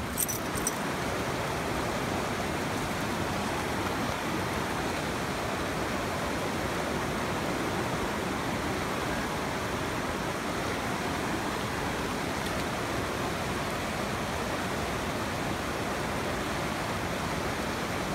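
Rushing stream water running over rocks, a steady, even rush. A few short clicks in the first second.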